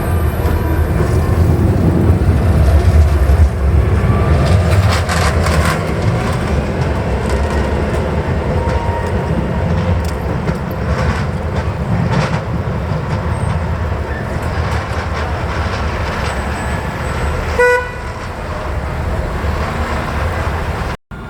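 A tram running with a steady low rumble and some knocks, and one short horn toot near the end; the sound cuts off abruptly at the very end.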